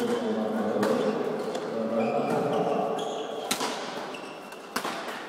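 Badminton racket strokes: sharp hits on the shuttlecock during a doubles rally, three clear ones about a second, three and a half seconds and five seconds in, each echoing in a large sports hall.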